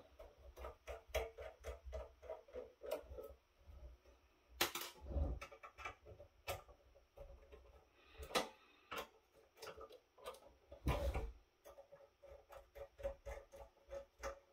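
Small screwdriver backing screws out of the metal cover of a network switch: a run of faint, quick ticks and clicks as the driver turns, with a few louder clicks scattered through.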